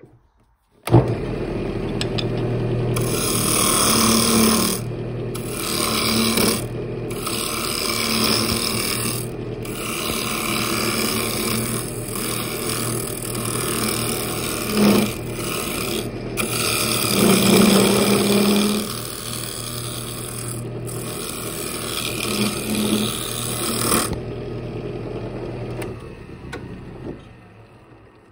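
Wood lathe switched on about a second in, its motor running steadily while a turning tool cuts the spinning wooden lid blank, the cutting hiss breaking off briefly several times as the tool lifts. The cutting stops about four seconds before the end and the lathe runs on, then winds down.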